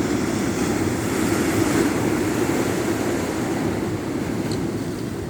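Sea waves washing on the shore, a steady noisy surge that swells over the first couple of seconds and eases off near the end.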